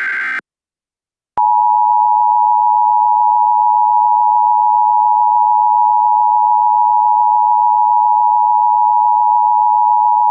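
Emergency Alert System attention signal: a loud, steady two-tone beep of two tones close together near 900 Hz (853 and 960 Hz) that starts about a second and a half in and holds without change. Just before it, the tail end of a buzzy SAME header data burst cuts off at the very start.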